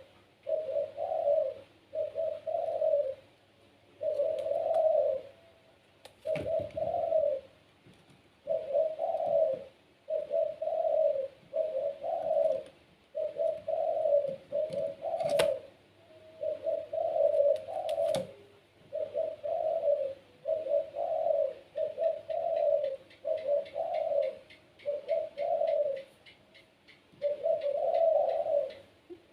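Puter pelung, a domestic Barbary dove, cooing over and over in a long run of short, low coos, some in quick pairs, with brief pauses between them. A few sharp clicks are heard along the way.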